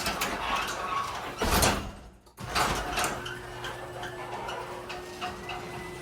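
Sectional garage door moving on its electric opener, with the opener's motor running in a steady hum. About a second and a half in there is a louder surge, then the sound drops out for a moment and resumes.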